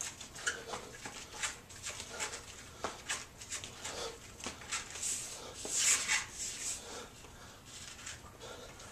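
A man breathing hard in short puffs while exercising on TRX suspension straps, mixed with a string of light clicks and taps; the loudest breath comes about six seconds in.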